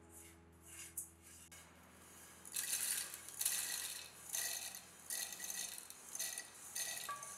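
Dry toasted rolled oats stirred lightly in a stainless steel pan with a wooden stick, then, from about two and a half seconds in, poured and scraped out of the pan into a plastic food processor bowl: loud rattling, pattering bursts of grains landing in the plastic.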